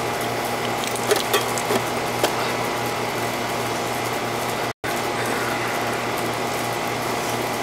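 A 20-year-old Ruud central air conditioner's outdoor condensing unit running, with a steady hum from the compressor and fan and a few light ticks in the first two seconds. The sound cuts out for a split second about halfway through. The system is a refrigerant leaker, running on a fresh top-up of refrigerant.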